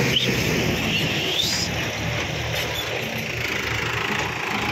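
Mahindra 475 DI tractor's four-cylinder diesel engine running steadily under load as it tows a trolley through soft mud. A thin, high whistle-like tone rises over it in the first second or two.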